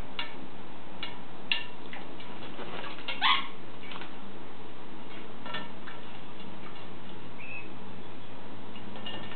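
An African grey parrot bathing in a shallow dish of water: short spells of splashing and wing-flapping, with one short rising call about three seconds in and a brief high chirp near the end.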